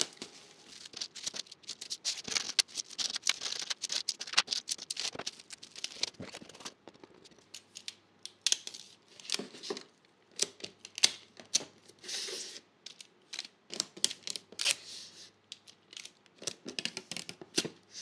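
Parcel-packing handling noise: bubble wrap rustling and crinkling, with many small irregular clicks and taps as items go into a cardboard mailer box and its lid is folded shut.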